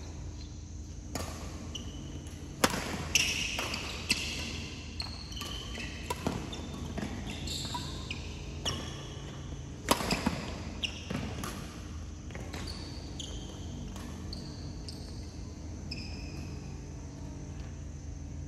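Badminton rally: sharp racket strikes on a shuttlecock every second or so, the loudest about a third of the way in and about halfway, with short high squeaks of shoes on the court floor between them.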